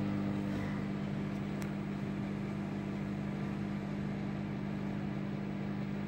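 Haier solo microwave oven running and heating on its timer: a steady electrical hum with a few faint clicks.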